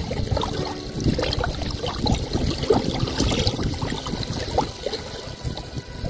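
Small waves lapping at a sandy shore, the water washing in and running back over the sand.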